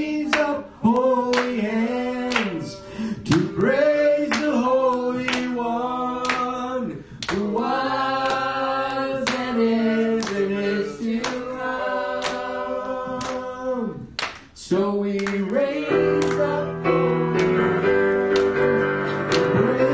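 A man singing a slow worship song into a microphone, with rhythmic instrumental accompaniment; sustained electric keyboard chords come in near the end.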